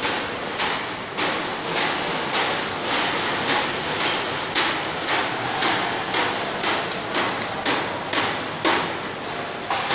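Metal drinking glasses being set down one after another on a metal table, each landing with a sharp clank, in a quick steady rhythm of about two to three a second.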